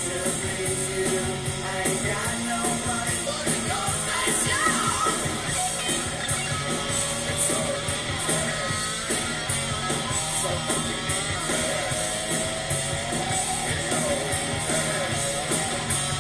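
Rock music with a singing voice, playing steadily inside a vehicle's cabin.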